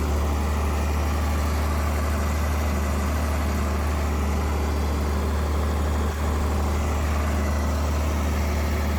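John Deere 4020 tractor engine running steadily with a deep, even hum.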